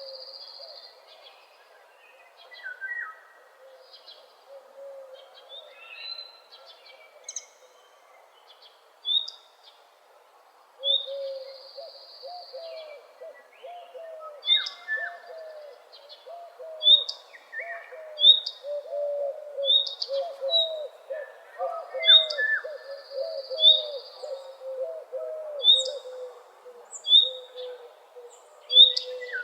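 Dawn chorus of several songbirds. A short high chirp repeats about once a second, a high buzzy trill comes three times, and from about a third of the way in a fast, low, continuous warble joins them.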